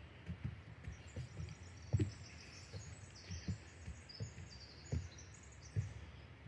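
A songbird singing a long, high series of rapid trilled notes that fades out after about four and a half seconds, over the dull thuds of footsteps on the trail.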